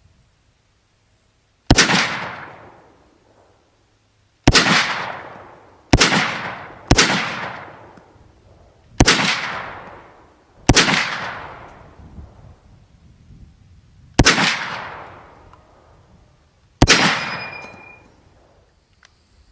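M1 Garand rifle firing .30-06 rounds: eight single shots at an uneven pace, each with a long echoing tail. Just after the eighth shot comes a short ringing ping, the empty en-bloc clip being ejected.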